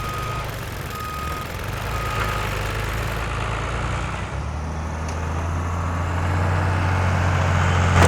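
Bulldozer engine running with its backup alarm beeping three times, about once a second. The engine grows louder about halfway through.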